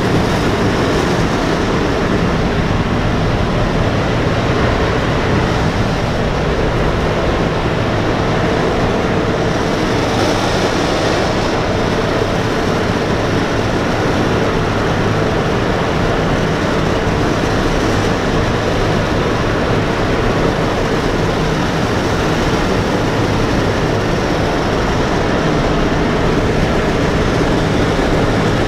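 Loud, steady drone of a B-17 bomber's four Wright R-1820 Cyclone radial engines in cruise flight, heard from inside the fuselage together with a rush of air.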